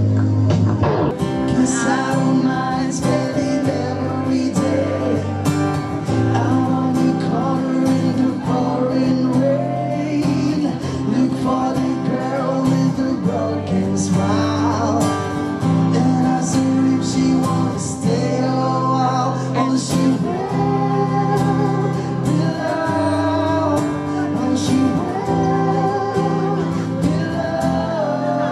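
A man singing into a microphone over accompanying music.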